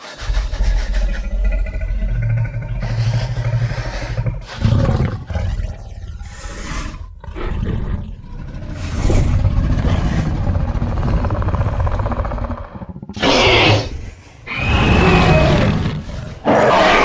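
Custom dinosaur creature sound effects: a run of deep, rumbling growls and roars, with several sharper, higher-pitched roars near the end.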